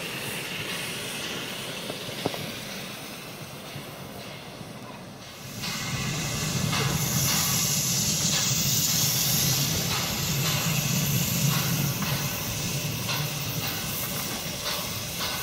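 Saxon narrow-gauge steam train moving off, its coaches rolling by quietly at first; about five and a half seconds in, a loud, steady steam hiss over a low rumble of the train sets in and carries on.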